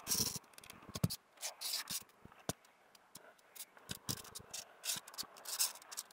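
Irregular rustling and scraping of hay in a cat's nest, with soft clicks, as the mother cat and her newborn kittens shift against each other.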